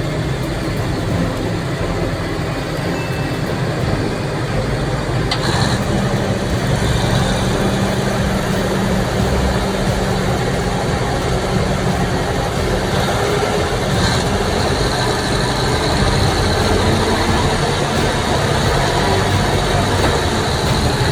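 A heavy truck's engine running steadily, with two faint clicks about five and fourteen seconds in.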